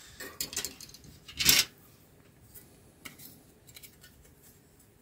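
Plastic model-kit parts trees being handled: light clicks and rattles of thin plastic sprues knocking together and sliding over the desk, with one louder rustle about a second and a half in.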